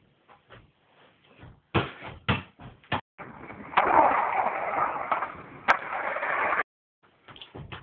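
Skateboard wheels rolling over concrete: a steady rumble of about three seconds with one sharp clack partway through, cut off abruptly. Before it come three loud knocks about half a second apart, and faint taps at the start and near the end.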